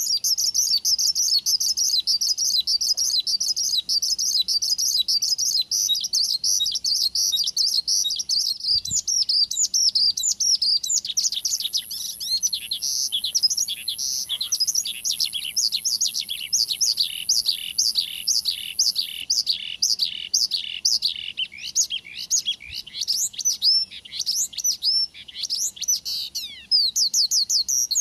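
Branjangan (Horsfield's bush lark) singing a long, fast, unbroken song of high chirps and trills. About eleven seconds in it changes to a run of quick slurred notes, about three a second, with a thin high trill over part of it, then returns to dense chirping near the end.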